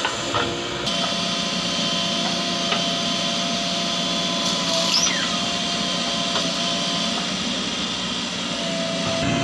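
JCB 3DX backhoe loader's diesel engine running steadily under working load, with a steady whine over it and a brief falling squeal near the middle.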